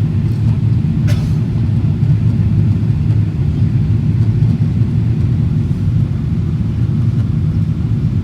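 Steady low rumble of an airliner cabin in flight, the engines and airflow droning evenly.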